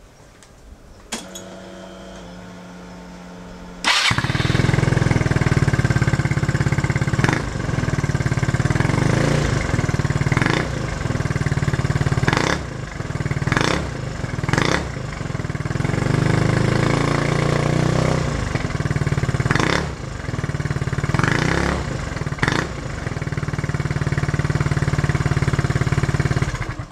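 Yamaha Cygnus X SR scooter's 125 cc single-cylinder four-stroke engine, breathing through an Over Racing stainless and carbon aftermarket muffler. The starter whirs for about three seconds before the engine catches, then it idles with repeated short throttle blips and stops abruptly near the end.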